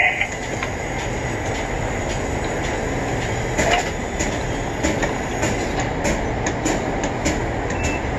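Tower crane machinery heard from inside the operator's cab as he works the joysticks: a steady mechanical rumble and rattle with scattered light clicks.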